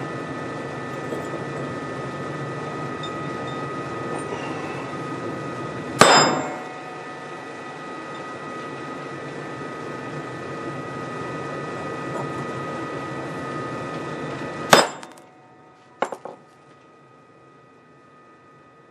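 A ball-peen hammer strikes a steel socket set on the pole piece of a cast-iron speaker field-coil frame, to drive the stuck pole piece out. One hard metallic blow comes about 6 s in and another near 15 s, followed by two light taps about a second later. A steady hiss with a faint whine underneath runs until the second blow, then stops.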